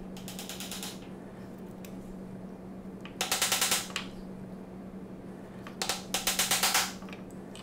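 Wooden joiner's mallet striking a chisel as it chops waste from a dovetail pin board, in three short bursts of quick, evenly spaced taps. The first burst is faint; the louder two come about 3 and 6 seconds in.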